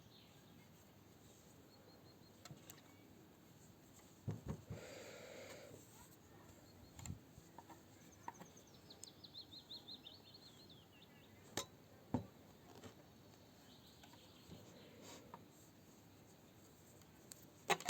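Faint, scattered clicks and taps of knitting needles over quiet outdoor background, with a small bird's brief trill of quick falling notes midway.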